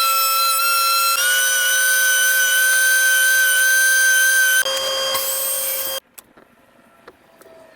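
Power saw running and cutting cedar, a loud steady whine whose pitch shifts about a second in and again near the end of the cut, stopping abruptly about six seconds in. A few faint knocks follow.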